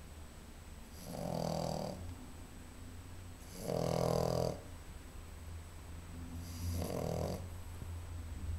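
French bulldog puppy snoring in her sleep: three snores about three seconds apart, each a buzzing rattle lasting under a second, over a low steady hum.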